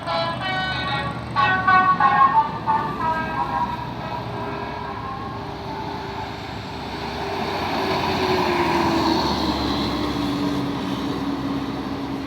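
Telolet bus horn playing a quick tune of several stepped notes for about three seconds. Then a bus passes, its engine sound swelling and its pitch falling as it goes by.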